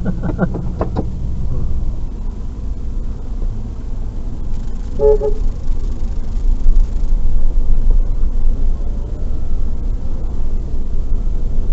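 Vehicle engine and road rumble, with a short car horn toot about five seconds in.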